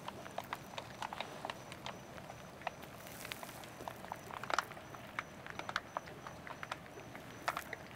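Foil-laminated freeze-dried meal pouch crinkling and clicking as hands handle its top and press the zip seal, in scattered irregular small clicks with a short rustle about three seconds in.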